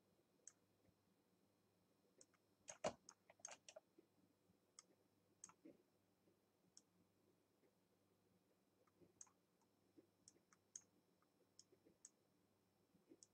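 Faint, irregular computer mouse clicks, a few seconds apart, with a quick cluster about three seconds in that holds the loudest click.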